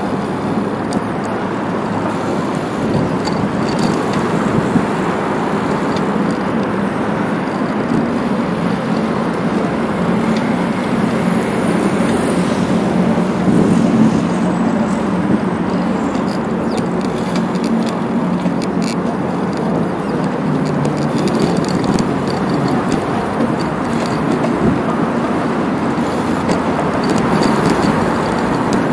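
Steady rushing noise of a bicycle being ridden over paving tiles, heard from the rider's action camera.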